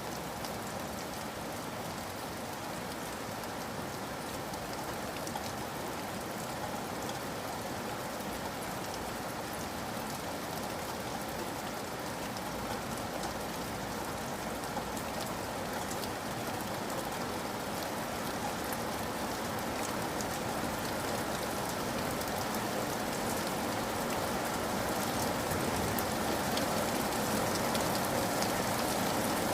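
Steady rain falling, with a fine patter of individual drops, growing gradually louder toward the end.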